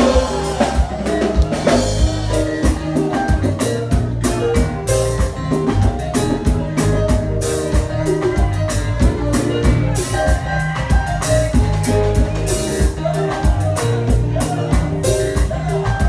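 Live konpa band playing with drum kit and guitars, a steady dance beat.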